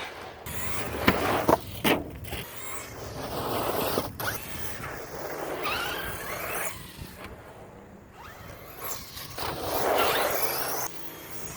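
1/8-scale electric RC truggy with a Tekin T8 brushless motor being driven hard: the motor's whine rises and falls over and over as it accelerates and lets off. A few sharp knocks come in the first four seconds.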